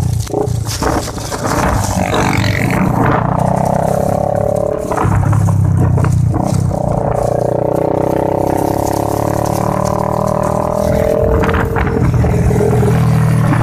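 Motorcycle engine running while being ridden, a steady drone whose pitch slowly rises and falls with the throttle.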